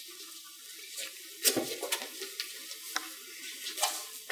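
Clothing rustling and shuffling bodies as a limp man is held and lowered to the floor, a steady crackly rustle with several light knocks and clicks, the sharpest about one and a half seconds in.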